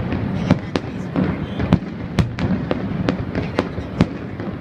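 Aerial fireworks bursting: about a dozen sharp bangs in quick, irregular succession over a continuous low rumble of the display.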